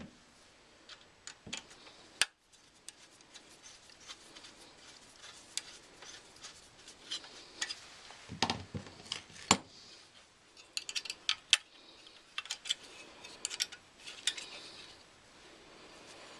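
Irregular small metallic clicks and taps of sheet-metal furnace parts and screws being handled and fitted by hand, with a few sharper knocks.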